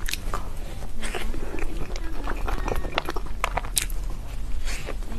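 Close-up eating sounds of a person biting into and chewing a soft apple-shaped mousse cake, with many short sharp mouth clicks.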